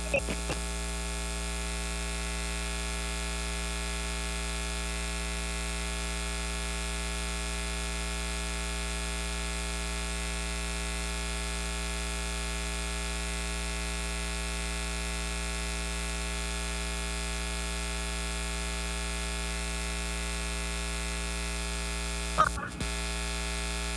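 Steady electrical mains hum with faint hiss, coming over an open phone line through a mobile phone held to a microphone, interrupted by one short blip near the end.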